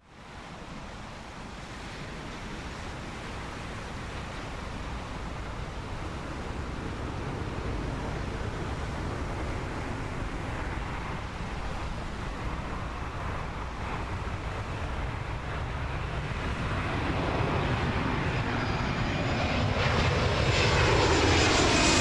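Airplane engines approaching, a steady rumble growing steadily louder, with sweeping tones over the last few seconds as the aircraft comes close.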